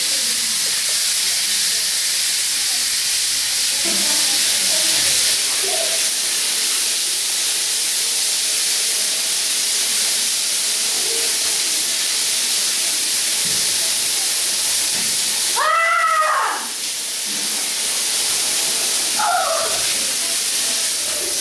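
Steady hiss of a running shower. About two-thirds of the way through, a loud, high-pitched voice squeals once, rising then falling in pitch, and a shorter squeal follows a few seconds later.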